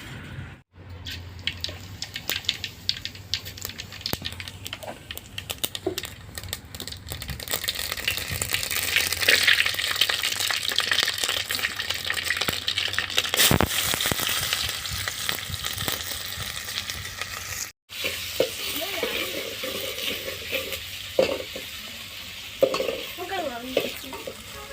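Curry ingredients frying in hot oil in a pan: a steady sizzle, dotted with the clicks and scrapes of a spoon stirring, louder through the middle. The sound breaks off for an instant twice, near the start and about two-thirds through.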